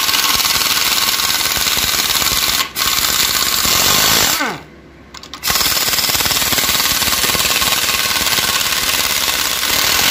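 Impact wrench hammering rapidly as it undoes the 12 mm bolts on an automatic transmission's rear cover. About four seconds in the rattle stops with a falling whine as the tool spins down, then it starts hammering again about a second later.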